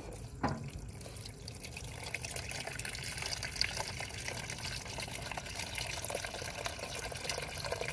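Liquid, mostly water, draining out of a Toro riding mower's crankcase into a container, the pouring growing louder over the first couple of seconds and then running on steadily. The water in the crankcase is the sign of a mower left out in the rain with its air filter open and fuel overflowing into the crankcase.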